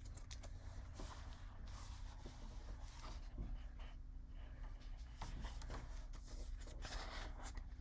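Faint paper rustling and soft taps as the pages of a picture book are handled and turned, with a louder rustle near the end, over a steady low hum.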